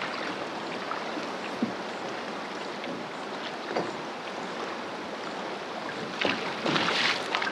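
Fast, high river water rushing past and lapping at a drift boat: a steady hiss of moving water, with a few louder splashes near the end.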